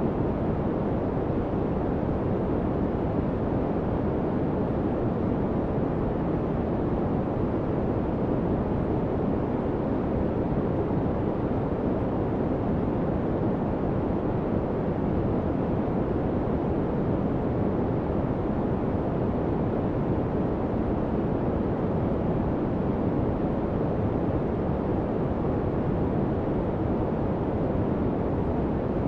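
Continuous, unchanging noise with its energy weighted low and rolling off above about 2 kHz, so it sounds deep and dull rather than hissy. It is the masking noise bed of a subliminal track, under which the affirmations are meant to lie unheard.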